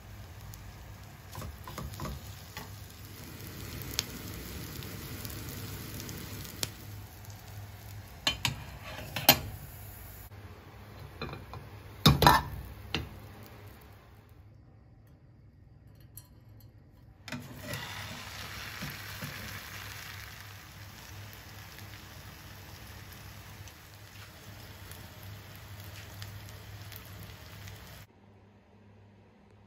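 Potato, capsicum and egg omelette mixture sizzling in hot oil in a frying pan, with several sharp knocks of a utensil against the pan around the middle. The sizzle drops out briefly after the knocks, returns, and cuts off near the end.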